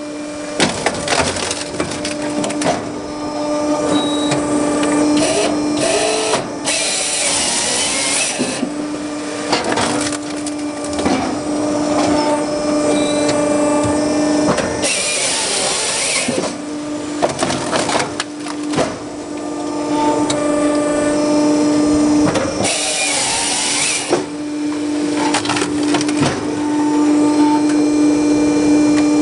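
A firewood processor (saw-splitter) runs with a steady hum from its hydraulics. Its hydraulic chainsaw cuts through a log three times, each cut lasting a couple of seconds, about every eight seconds. Between cuts come knocks and cracks as logs are fed forward and rounds are split.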